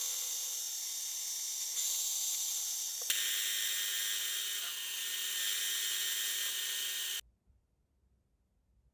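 Mini lathe running, with a steady, mostly high-pitched machining noise. A click about three seconds in changes the sound, and it stops abruptly near the end, leaving near silence.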